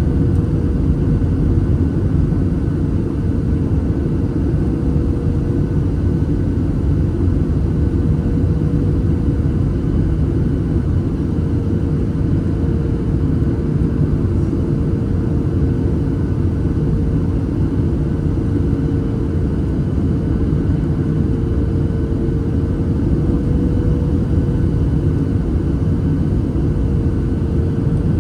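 Cabin noise inside a Boeing 737-800 in flight: the steady drone of the CFM56-7B engines and airflow, with one steady hum riding over the low rumble.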